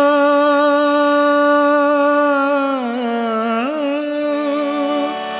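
A man sings a long held note in a raga-based Bengali song over a harmonium. About three seconds in the voice slides down and back up in an ornamented turn while the harmonium holds steady beneath.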